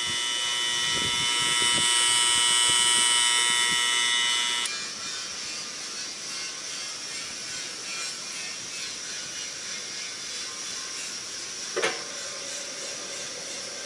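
SK Mixer SK131SX commercial bakery mixer running under test. A loud, high, many-toned buzz stops abruptly about four and a half seconds in, leaving the machine running more quietly and steadily. A short sharp squeak comes near the end.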